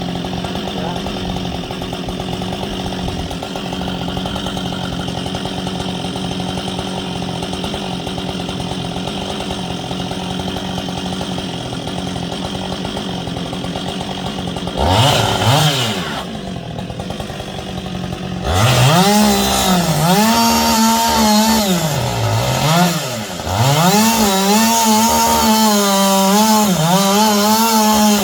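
Gasoline chainsaw idling steadily, then revved once briefly just past the middle. It then runs at full throttle, its pitch dipping and recovering again and again as the chain bogs down in the wood, and it falls back to idle at the end.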